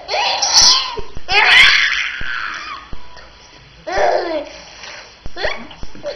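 Baby laughing in about four high-pitched bursts, the longest and loudest near the start, with shorter ones later.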